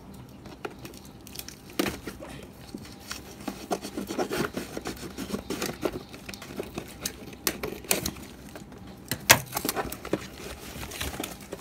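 Scissors cutting the packing tape on a cardboard box and the box being handled and opened: scrapes, rustling and scattered clicks, with one sharper knock about nine seconds in.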